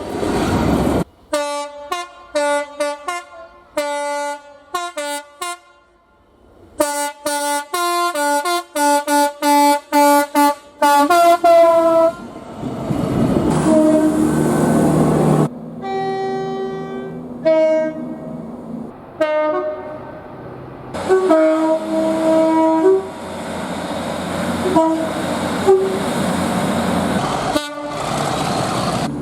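Multi-tone train horns sounding chords: a rapid run of short blasts in the first dozen seconds, then longer blasts over the rushing noise of moving trains, cutting abruptly from one horn to the next.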